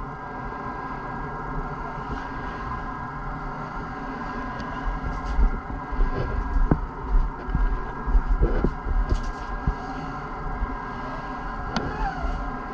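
A steady mechanical hum with a low rumble. Over it come a few light scuffs and taps from a sanding pad worked by hand over a resin-glassed surfboard, knocking off loose fibreglass strands.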